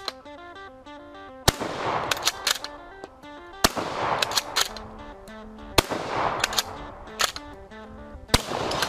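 Four loud gunshots about two seconds apart, each followed by a few quick sharper cracks, over background music with a melody.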